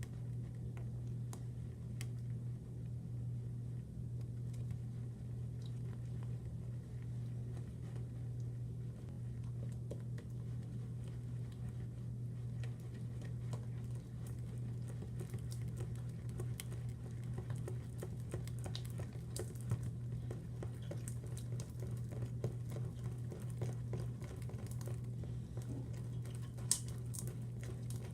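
Slime being mixed and worked by hand: small sticky clicks and squelches, growing more frequent about halfway through, over a steady low hum.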